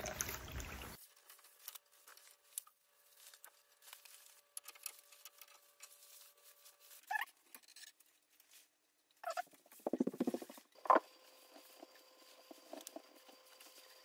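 Water from a garden hose pouring into a floor drain, stopping abruptly about a second in. Then faint scattered clicks and scrapes and a few short knocks as copper pipes and their fittings are handled.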